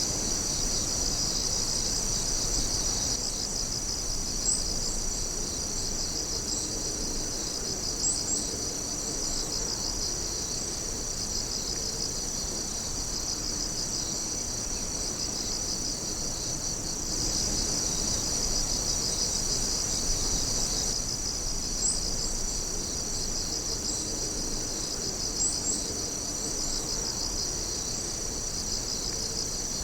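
A dense chorus of night insects calling, several high-pitched pulsing trills overlapping without pause. A few sharper single chirps stand out now and then, and the chorus swells a little about two-thirds of the way through.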